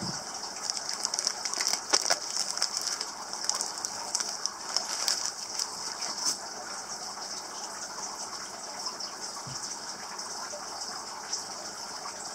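Plastic bags crinkling and rustling as they are handled, busiest over the first half with scattered crackles later, over a steady high hiss.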